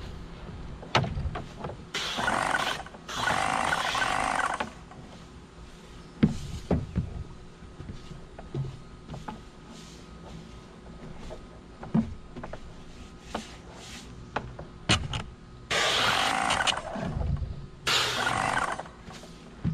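Stain brush scrubbing across wooden stair treads in strokes about a second long, two pairs of strokes, with scattered knocks and clicks between them.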